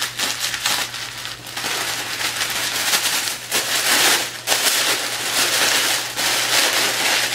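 Continuous crinkling and rustling of white wrapping being pulled open by hand, close to the microphone.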